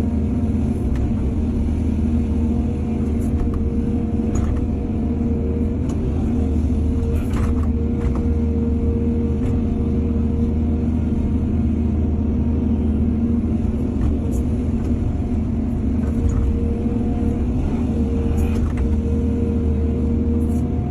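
Excavator's diesel engine running steadily, with a steady whine that fades in and out and a few scattered knocks.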